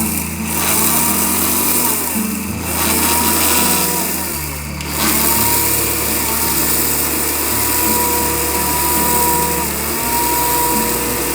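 A 1600-watt blender motor running flat out, grinding dry turmeric in its small stainless steel jar down to powder. It is a steady high whine over harsh grinding noise. The pitch dips and comes back a couple of times.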